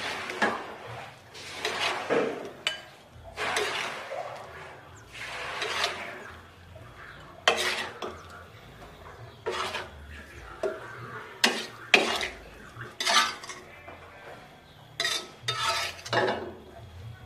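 A spatula scooping and scraping cooked potato-and-liver sambal around a non-stick wok, dishing it out, with repeated scrapes and several sharp knocks of the spatula on the pan in the second half.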